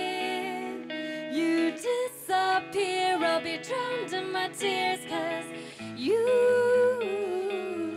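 A woman singing lead into a microphone over a live band with guitar. About six seconds in she holds a long high note that then slides down.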